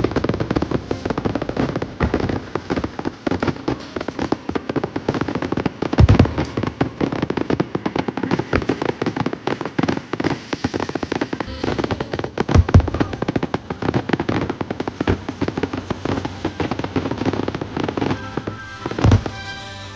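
Aerial fireworks display: dense, continuous crackling and popping of shells, with three heavy booms about 6, 13 and 19 seconds in.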